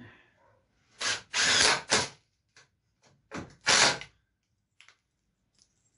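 Cordless drill driving 1 5/8-inch wood screws into wooden slats, in two short runs about two seconds apart, each made of a few quick spurts of the motor.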